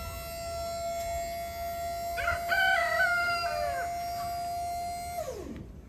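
Electric hydraulic pump of a 6x10 Carry-On dump trailer running with a steady whine as it tips the bed holding a round bale, then winding down about five seconds in as it stops. A rooster crows once over it about two seconds in.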